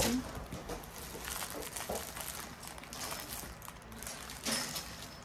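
Clear plastic sleeves holding diamond painting canvases rustling and crinkling as they are lifted and flipped through. There is a sharp knock right at the start and a louder rustle about four and a half seconds in.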